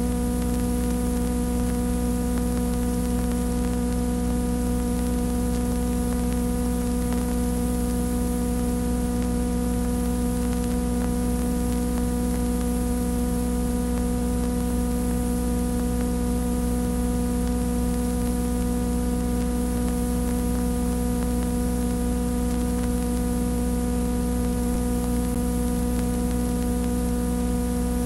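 Steady buzzy electrical mains hum with many overtones, over a constant layer of hiss and static, unchanging.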